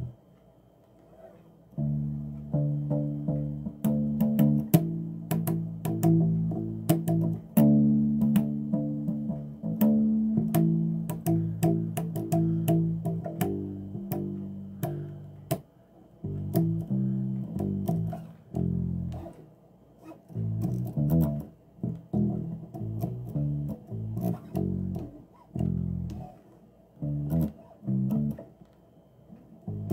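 Bass guitar played solo: a run of short plucked notes with clicks from the strings, starting about two seconds in and going on with only a brief pause near the middle.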